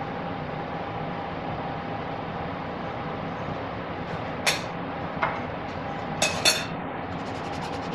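Steady kitchen hum with a faint held tone in it. From about halfway through, metal cookware and utensils clink sharply four times, two of them in quick succession, and a light fast rattle follows near the end.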